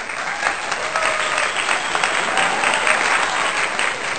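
Applause from a crowd, a dense steady patter of many hands clapping that begins abruptly.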